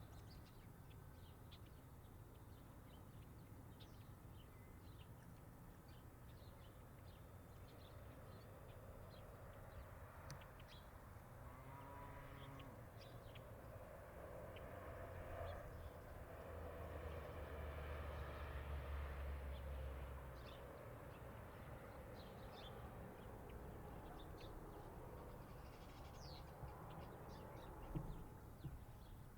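Quiet outdoor farm ambience: birds chirp on and off throughout, with a single short animal call about twelve seconds in. A low rumble swells and fades near the middle.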